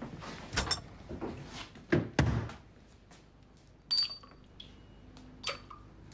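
Glassware being handled: a few dull knocks and thunks, then two sharp glass clinks, about four seconds in and again near the end, each leaving a brief high ring.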